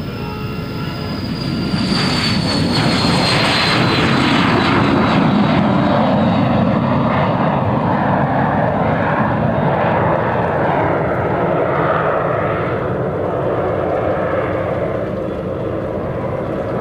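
Cessna Citation business jet's twin turbofan engines on a takeoff and climb-out. A high turbine whine drops in pitch as the jet passes, over a loud steady roar that builds in the first couple of seconds and then slowly fades as it climbs away.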